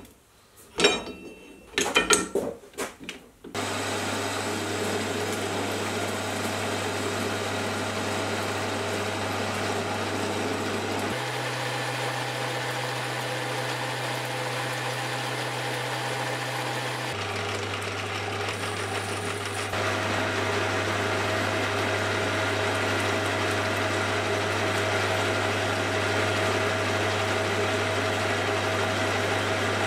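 A few metallic knocks and clanks, then a Hafco AL-250G metal lathe running with a steady motor and gear hum. The pitch of the hum steps up about eleven seconds in and back down some six seconds later. From about twenty seconds in it gets a little louder as a carbide tool turns down a metal bar held between the chuck and the tailstock centre.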